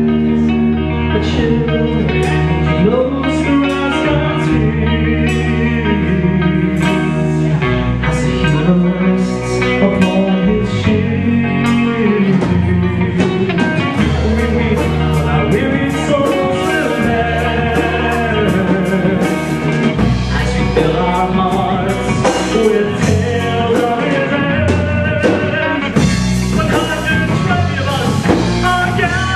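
Live Celtic metal band playing a song: electric guitars, bass and drums, with a melodic lead line over the top.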